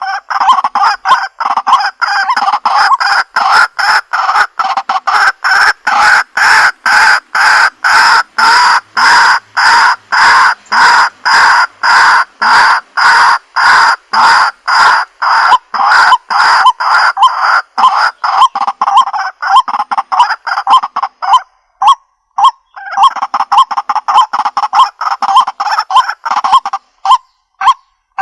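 White-breasted waterhen giving its croaking 'kuwak-kuwak' call in a fast, unbroken series of about two notes a second, played back as a lure through a Bluetooth speaker. The series pauses briefly about three-quarters of the way through, resumes, then thins to separate short notes near the end.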